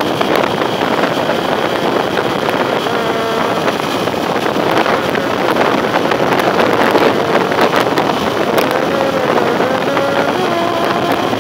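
Motorcycle riding at road speed: steady wind rush on the microphone over the engine's running note, which wavers slightly in pitch now and then.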